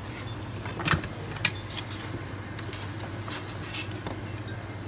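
A series of sharp, light metallic clinks and taps, the loudest about a second in and again half a second later, with smaller ones following over a steady low hum.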